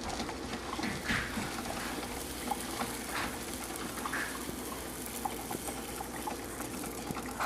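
Pancakes frying in a pan: a steady sizzling hiss with a few faint clicks.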